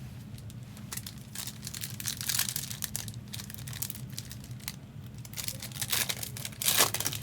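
Trading card pack wrappers being torn open and crinkled in the hands, in irregular bursts with the loudest rustle near the end, over a steady low hum.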